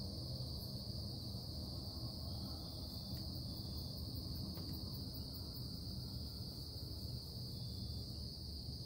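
Steady low droning hum of industrial production machinery, with an unbroken high-pitched hiss over it.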